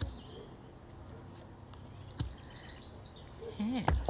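Quiet outdoor ambience with a bird's short trill of quick, evenly spaced high chirps about halfway through. A few soft knocks come as tarot cards are handled over a table.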